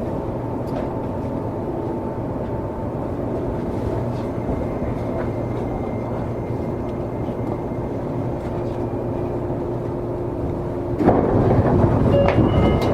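Seibu 20000 series electric train's running sound heard inside the car as it draws into its terminus: a steady rumble with a faint steady hum. About eleven seconds in, a louder, rougher noise takes over.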